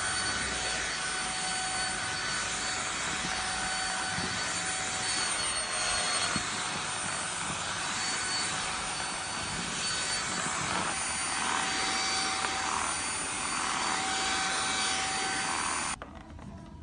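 Dust-mite vacuum cleaner running with a steady, high-pitched motor whine, switched off abruptly near the end.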